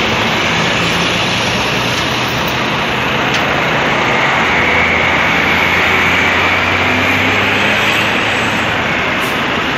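Heavy diesel truck engine running loudly and steadily, with a faint whine over it.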